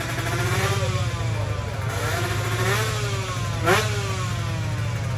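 Tuned 155 cc two-stroke sport motorcycle engine revved in repeated blips, its pitch rising and falling several times, with the sharpest rev about three and a half seconds in. A steady low hum runs underneath.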